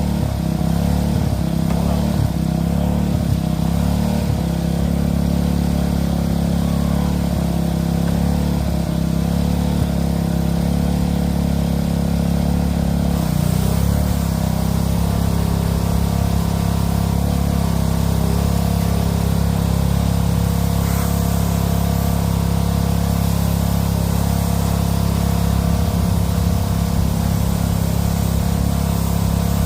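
Craftsman pressure washer's Briggs & Stratton Intek 206 single-cylinder engine running steadily, with water spray hissing over it.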